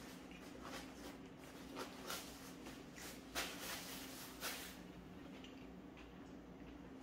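Soft rustling and crinkling of a paper napkin being handled and wiped over the fingers, in a handful of short bursts, the loudest about three and a half seconds in, over a faint steady low hum.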